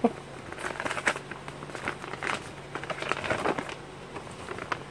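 Plastic bag and paper crinkling and rustling in short, irregular crackles as they are handled, with a folded sheet of notebook paper being opened toward the end.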